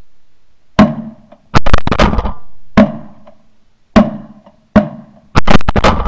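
A rapid volley of shotgun shots from several hunters firing at a flock of pigeons: about ten blasts in six seconds, some single, some two or three in quick succession, each dying away quickly.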